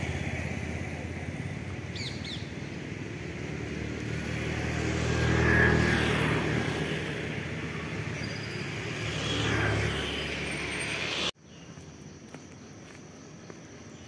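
Motor vehicles passing on a road, two swelling and fading in turn, the louder one about halfway through. The sound cuts off suddenly near the end to a quieter outdoor background.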